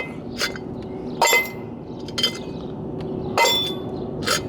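Steel brake drum clinking and knocking, about five separate hits with a short metallic ring, the loudest about a second in and again near three and a half seconds, as brake dust is knocked out of it.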